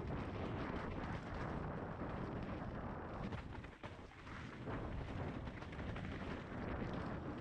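Mountain bike ridden along a trail, heard from a helmet-mounted camera: wind rushing over the microphone with the tyres and bike rattling over rough ground, briefly easing about halfway through.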